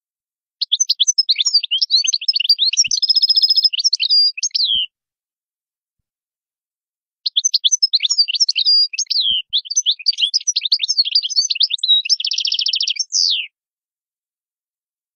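European goldfinch singing: two fast, high twittering song phrases, the first about four seconds long and the second about six, each with a rapid buzzy trill near its end. The phrases are separated by a couple of seconds of silence.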